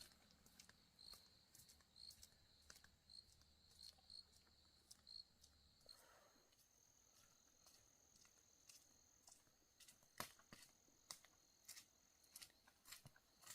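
Faint insects chirping: a high chirp repeating about twice a second, giving way about six seconds in to a steady high trill, with scattered soft clicks and taps.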